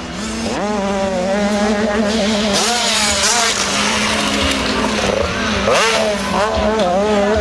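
Motocross dirt-bike engines revving on the track, their pitch climbing and falling back several times as the rider opens the throttle and shifts, over a steady lower engine drone.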